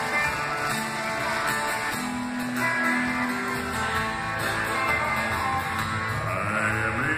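Live gospel band playing the song's instrumental opening: strummed acoustic guitar and electric guitar over bass, amplified through PA speakers.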